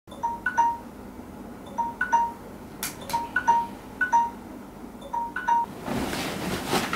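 Smartphone alarm playing a chiming tune of short bell-like notes, mostly in pairs about every second and a half, as a wake-up alarm. The notes stop about five and a half seconds in, and the bedding then rustles as the sleeper moves.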